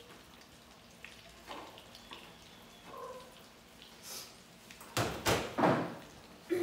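Quiet kitchen handling: faint taps and scrapes as fritters are set on plates, then several loud, short swishes near the end as a cloth apron is pulled off over the head.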